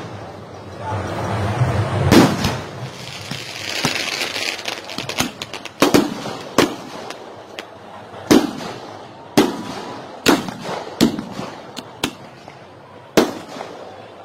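Aerial fireworks going off: about ten sharp, irregularly spaced bangs with smaller crackles between them, and a hissing rush about four seconds in.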